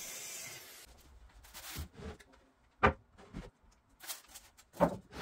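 Scattered knocks and clicks of wooden panels and tools being handled on a workbench, the sharpest about three seconds in and two more near the end. A faint hiss in the first second fades out.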